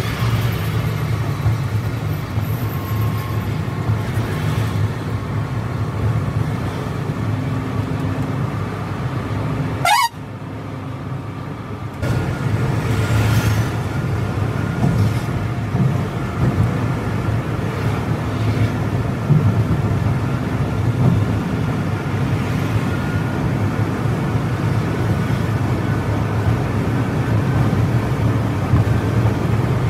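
Steady engine drone and road noise of a coach at highway speed, heard from inside the cab, briefly dropping away about a third of the way through before resuming.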